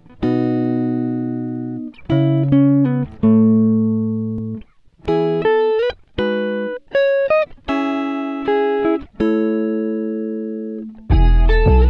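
Background music: plucked guitar-like notes and chords, each struck sharply and left to ring and fade, with a fuller passage coming in near the end.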